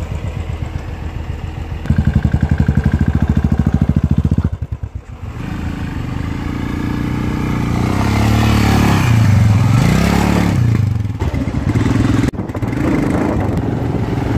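Royal Enfield single-cylinder motorcycle engines being revved under throttle over loose gravel: rapid, loud thumping exhaust pulses for a couple of seconds, then revs that climb and fall. The sound breaks off briefly twice.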